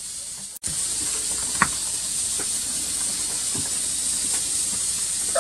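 Steady high hiss with a few faint knocks of a kitchen knife on a plastic cutting board as raw chicken legs are cut.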